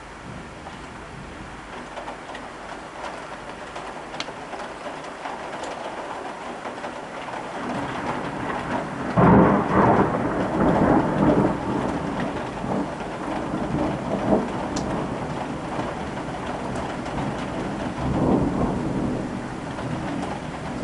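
Steady rain with a loud thunderclap about nine seconds in that rolls on for several seconds, then a further rumble of thunder near the end.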